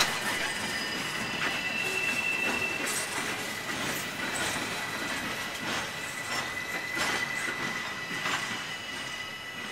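Freight train cars rolling past, clacking over the rail joints every second or so, with a steady high-pitched squeal.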